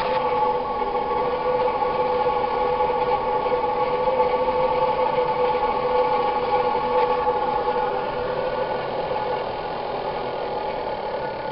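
Small engine running steadily on wood gas from a homemade downdraught gasifier, with a steady droning tone.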